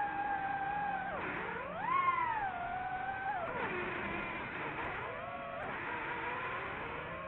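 FPV drone's motors whining. The pitch dips sharply about a second in, swoops back up, falls again near the middle and wobbles with throttle changes.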